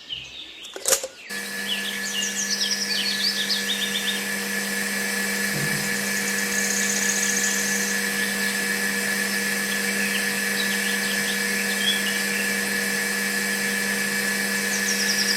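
Small electric motor switching on about a second in and running at a steady speed with a constant hum.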